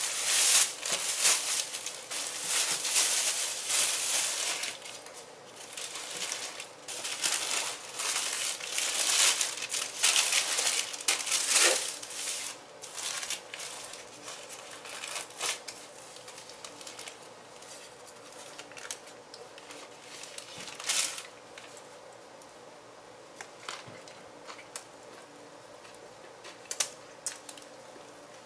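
Plastic bag and paper sandwich wrapper crinkling and rustling as a Subway sandwich is pulled out and unwrapped, dense and continuous for about the first twelve seconds. After that it turns quieter, with only occasional rustles.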